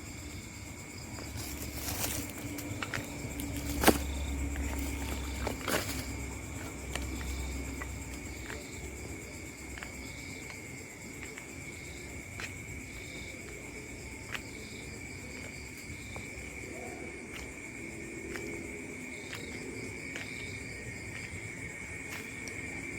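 Night ambience of a steady, high-pitched insect chorus, with a few sharp clicks, the loudest about four seconds in, and a low rumble for a few seconds after it.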